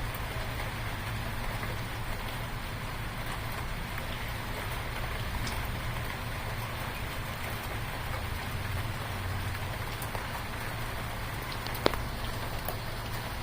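Steady rain falling, with scattered drop ticks and one sharp tap about twelve seconds in.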